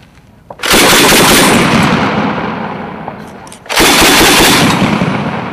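Mk 19 40 mm automatic grenade launcher firing a three-round burst a little under a second in. A second, equally loud burst of reports follows about three seconds later. Each dies away in a long, slowly fading echo.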